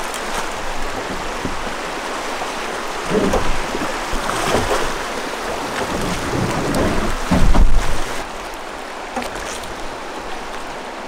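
Rushing river water around a drift boat, with the splash of oars dipping as the rower pulls. A louder, deeper swell of water or wind comes about seven to eight seconds in.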